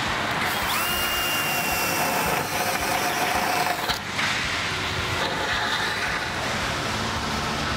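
Cordless drill with a step bit cutting a 5/8-inch hole through thin sheet-metal spiral duct, with a high steady whine in the first couple of seconds. The drilling stops about four seconds in, and a steady background hiss carries on.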